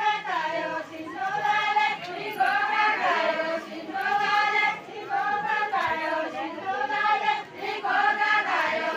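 A circle of villagers singing a Deuda folk song together in chorus, with short phrases of about a second each following one after another.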